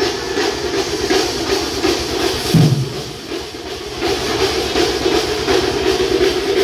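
Loud festival music driven by fast, steady drumming. A deep thud comes near the middle, and the music eases briefly just after it.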